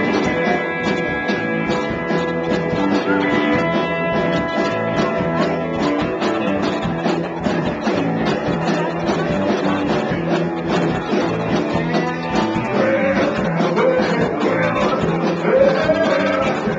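Live rock band playing, with guitar over bass and drums; a singing voice comes in about three-quarters of the way through.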